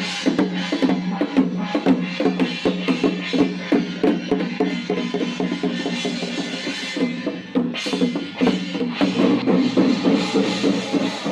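Music led by drums and percussion: quick, steady strikes over a held low note.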